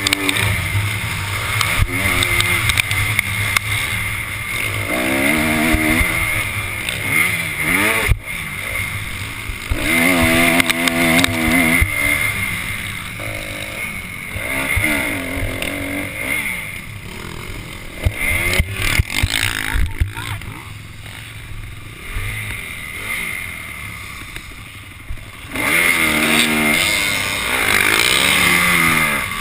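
Motocross bike engine heard from on board, revving up and down hard as it is ridden around a dirt track. The engine drops off for several seconds past the middle, then climbs hard again near the end.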